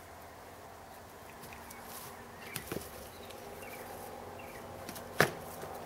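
Padded foam swords striking in a sparring bout: a few light knocks about two and a half seconds in, then one sharp, loud whack near the end.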